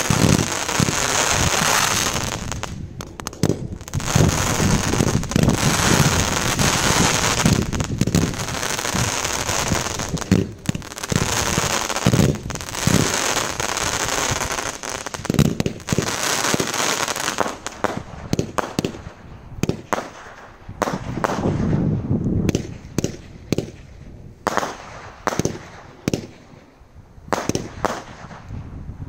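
A 200-shot consumer firework cake firing in quick succession: a dense, near-continuous run of shots and bursts that thins out to separate shots with short gaps in the last ten seconds or so.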